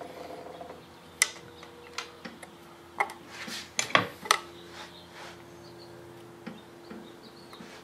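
Scattered sharp clicks and light knocks from a screwdriver and wiring connectors being handled against a Tesla drive unit's metal inverter housing, bunched together about three to four seconds in, over a steady low hum.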